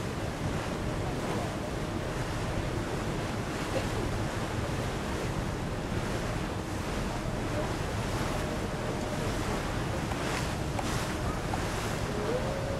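Wind buffeting the microphone, a steady rushing noise heaviest in the low rumble, over the wash of choppy open water.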